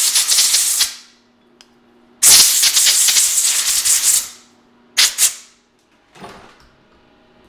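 Three blasts of compressed air hissing: the first ending about a second in, a longer one of about two seconds starting a little after two seconds in, and a short one about five seconds in.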